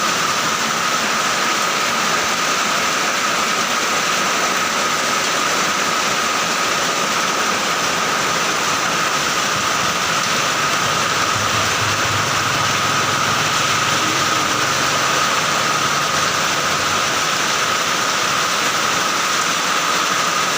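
Heavy rain falling in a steady, even hiss, with a thin steady high tone running underneath. A low rumble rises and fades in the middle.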